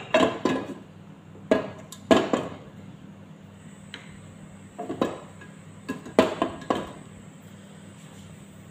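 Metal cooking pot and utensils being handled on a gas stove: a handful of short, sharp knocks and clinks at irregular intervals, over a low steady hum.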